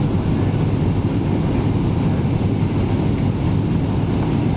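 Steady low rumble of a Boeing 777-300ER's cabin noise on approach: airflow over the fuselage mixed with its GE90 engines, heard from a passenger seat inside the cabin.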